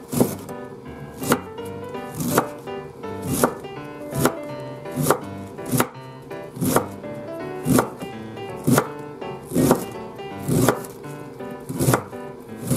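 Kitchen knife shredding cabbage, the blade striking the cutting board in an even rhythm of about one chop a second, over background music.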